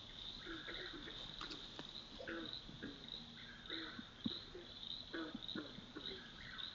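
Night insect chorus: a steady, high, pulsing trill, with frequent short chirps and clicks lower down.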